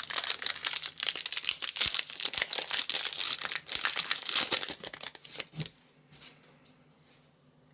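Foil wrapper of a Pokémon booster pack crinkling as it is handled and torn open. The crinkling stops sharply about three-quarters of the way through, leaving only a few faint ticks.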